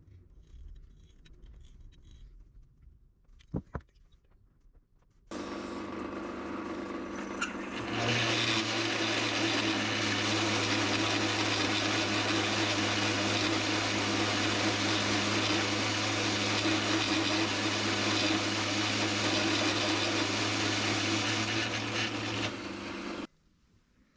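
Steady metalworking machine noise, a dense hiss over a low steady hum. It starts abruptly, grows louder a few seconds later, runs for about fifteen seconds and cuts off suddenly. A couple of light clicks come before it.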